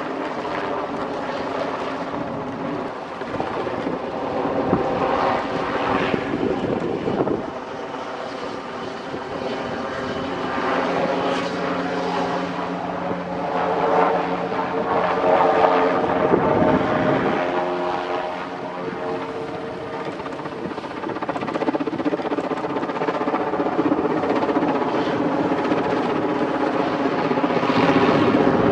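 Westland Wessex helicopter flying a display overhead, its rotor blades and turbine engine running steadily. The sound swells and fades as it manoeuvres, with the pitch bending as it passes, and it is loudest near the end.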